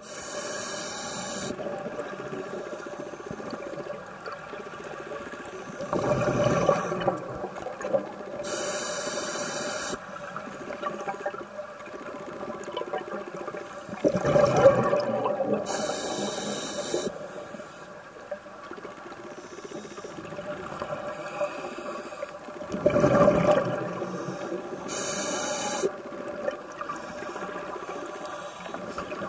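Scuba diver breathing through a regulator underwater: a rumbling burst of exhaled bubbles, then a hiss of inhaled air through the regulator, repeating about every eight seconds.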